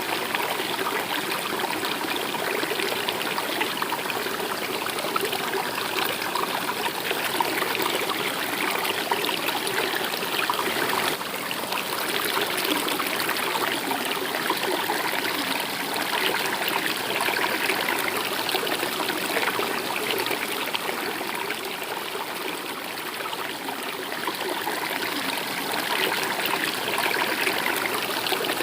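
River or stream water flowing steadily.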